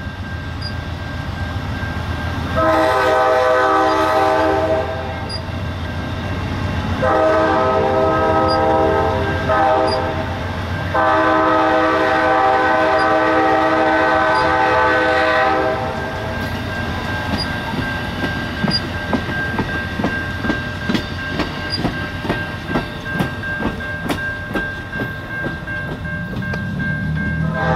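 Amtrak passenger train's locomotive horn sounding the grade-crossing signal, two long blasts, a short one and a final long one, while the stainless-steel passenger cars roll past. After the horn stops, the rear cars' wheels clack over rail joints in a steady run of clicks until the last car passes. Near the end another horn blast starts.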